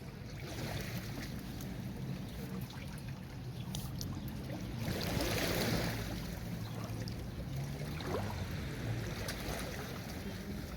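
Sea waves washing onto a beach, with one larger wave surging up about five seconds in and then falling back.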